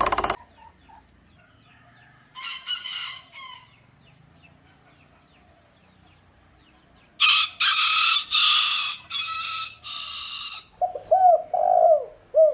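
Chicken calling: a short harsh call, then a run of about five loud harsh calls. Near the end a dog starts barking in short pitched yelps.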